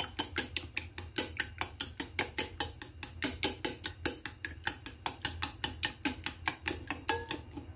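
Raw eggs being beaten in a stainless steel bowl, the thin utensil clicking against the metal side in a fast, even rhythm of about five strokes a second. The beating stops just before the end.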